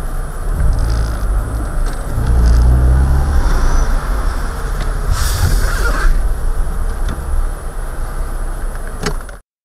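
Road and engine noise inside a car driving in city traffic, with a heavy low rumble as a bus runs close alongside. A brief hiss comes about five seconds in. The sound cuts off abruptly near the end.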